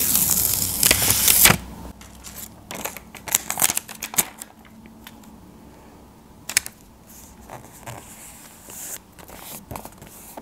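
Paper rustling and crinkling as the backing is peeled off a handmade paper sticker, loudest in the first second and a half, then softer scattered taps and rustles as the sticker is pressed and smoothed onto a sketchbook page.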